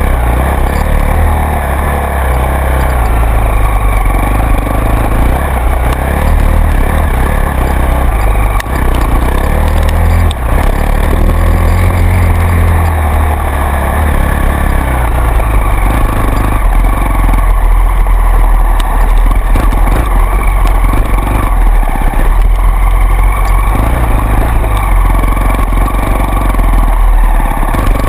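An off-road vehicle's engine running as it drives along a rutted trail, loud and fairly steady with a heavy low rumble.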